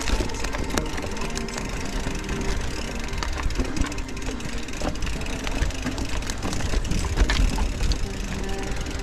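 E-mountain bike riding over a rough trail: rumble of wind on the action camera's microphone, with a constant scatter of clicks and rattles from tyres, stones and the bike's parts.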